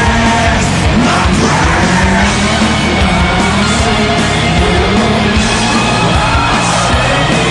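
Loud hard rock music with yelled vocals over a driving beat.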